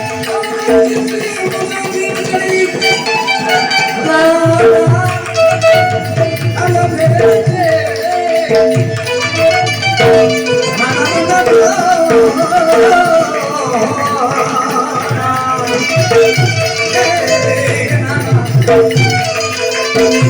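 Gujarati devotional bhajan music: a hand-drum rhythm under a steady held drone, with a melodic line winding above.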